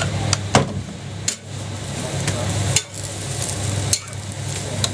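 Jianbing being cooked on a hot griddle: sizzling and the metal spatula scraping across the plate, with several sharp taps and clicks of metal on metal over a steady low hum.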